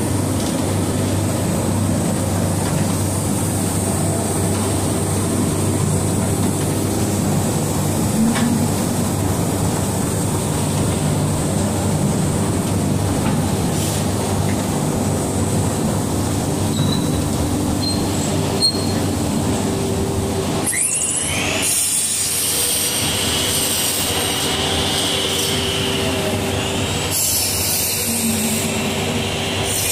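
Machinery of a wood sawdust block production line running with a steady, loud drone. A high squeal with sweeping pitch joins in about two-thirds of the way through and again near the end.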